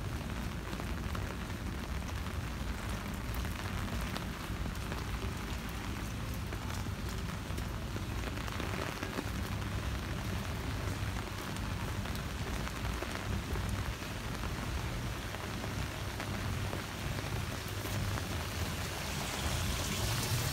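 Steady rain falling on a wet street and pavement, an even hiss with a low rumble under it. Near the end a higher rushing hiss swells louder.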